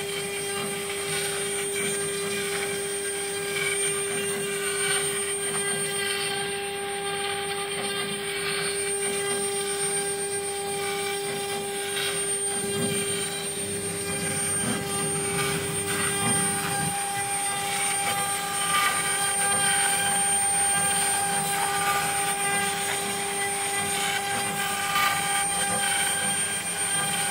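CNC router spindle running steadily with an even whine while a small carving bit cuts a relief into a styrofoam board.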